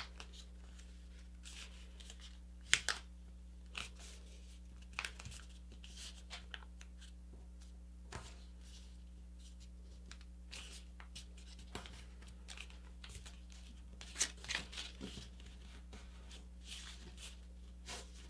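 A sheet of printer paper crackling and rustling in short bursts as a paper airplane's wing is folded over and its crease pressed flat by hand, with the sharpest crinkles about three seconds in and again near fourteen seconds. A faint steady low hum lies under it.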